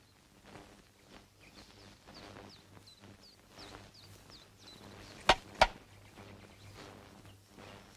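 A small bird chirping faintly in a run of short falling notes, then two sharp smacks about a third of a second apart a little past halfway, from a karate instructor's hands over a cloth-covered stack of roof tiles.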